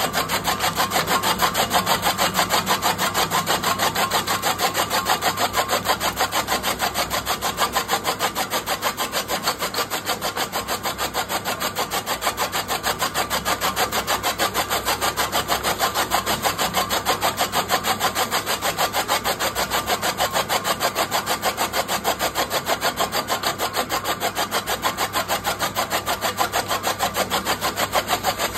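Electric chaff cutter running and chopping green fodder stalks fed into it: a steady, fast, even chopping rhythm from the flywheel blades over the motor's hum.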